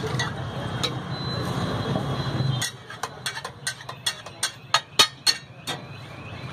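Metal masher clanking against a large flat griddle (tawa) while pav bhaji is mashed: about a dozen sharp, irregular metallic strikes over roughly three seconds, starting a little over two and a half seconds in, the loudest near the end. Before them, a steady low background din.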